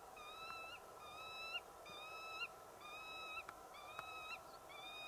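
A bird repeating one long, clear whistled note over and over, about once a second, each note level in pitch with a small flick at its end.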